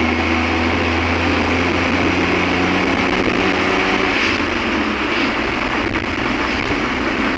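Engine and road noise heard from inside a moving vehicle driving along a paved road. The engine's steady low hum shifts about three seconds in.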